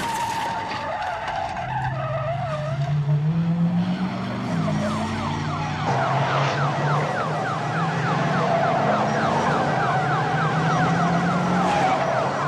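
Several police cars pulling away at speed: engines revving and tyres squealing, with police sirens. From about six seconds in the sirens switch to a fast repeating yelp.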